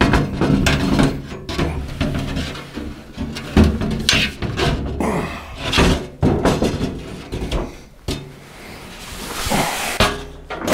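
Irregular knocks and thunks, with a stretch of scraping near the end, as tailgate window glass is worked loose from an old stuck rubber weatherstrip seal and lifted out.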